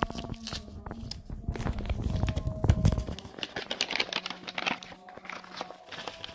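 A brown kraft paper envelope with a taped flap crinkling and rustling as it is handled, with many sharp crackles. A louder low rubbing comes between about two and three seconds in.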